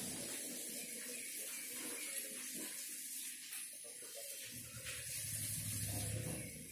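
Faint steady hiss of running water, with a low rumble joining about four and a half seconds in.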